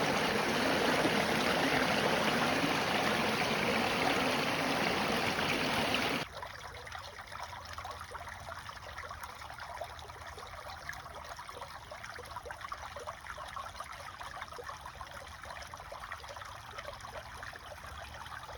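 Running water of a stream, a steady rushing; about six seconds in it cuts abruptly to a much fainter trickle with light crackling.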